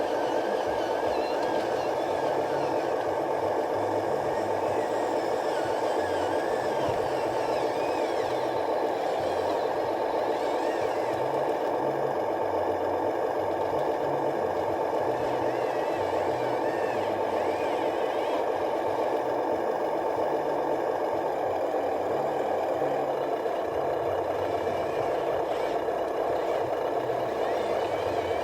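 Remote-control truck running steadily, its motor and gears giving a continuous mechanical drone with a thin whine that wavers up and down.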